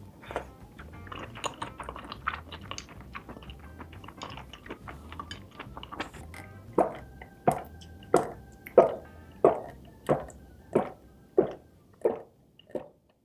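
Close-up chewing with wet mouth clicks, then from about halfway a steady run of about ten loud swallowing gulps, roughly one and a half a second, growing fainter toward the end as a glass of water is drunk.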